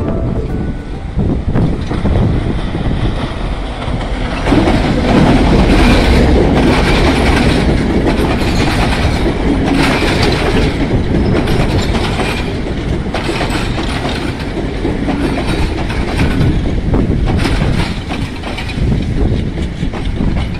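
Passenger train running close by, its coach wheels clattering over the rail joints. It is loudest from about four seconds in and eases off near the end as the last coach passes.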